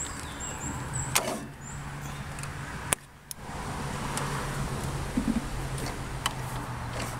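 Briggs & Stratton riding-mower engine running steadily at idle, freshly started. The sound dips briefly about three seconds in, with a couple of clicks.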